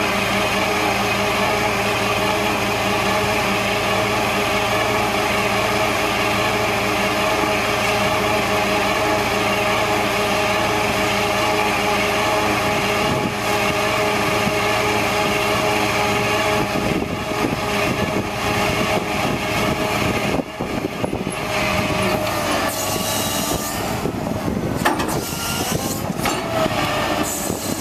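1999 International digger derrick truck's engine running steadily, driving the Altec derrick's hydraulics. About two-thirds of the way through the sound turns uneven, with tones shifting in pitch as the hydraulic boom raises the auger out of the hole.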